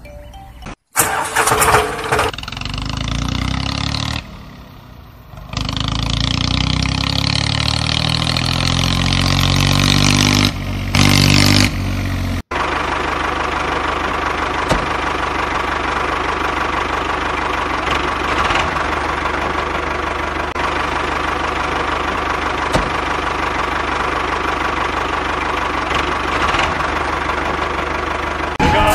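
An engine starting with a loud burst about a second in, then revving, its pitch rising and falling. After an abrupt cut near the middle it runs steadily with an even hum.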